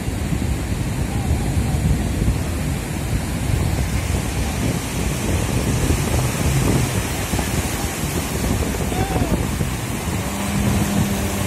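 Breaking surf and wind rushing over the microphone in a steady wash of noise. About ten seconds in, the steady hum of a jet ski engine joins it as the craft runs close.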